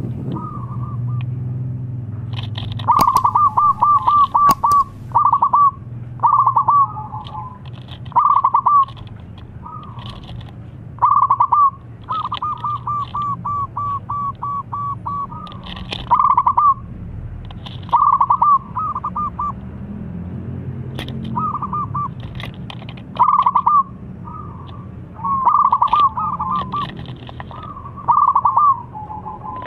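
Local zebra dove (perkutut) cooing its song: phrases of fast-repeated coo notes, one every second or two, some running on for a couple of seconds. A low steady hum sits underneath.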